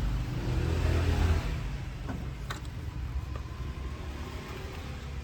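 SENCAM tree-cutting saw's motor running, louder for about the first second and a half and then settling to a lower steady level, with a couple of sharp clicks in the middle.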